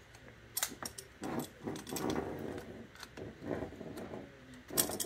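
An adjustable spanner tightening the fill-whip fitting on a 3-stage PCP hand pump, with intermittent metallic clicks and scraping of the spanner on the fitting. The fitting is tightened with a spanner because it has no bonded O-ring and would otherwise leak.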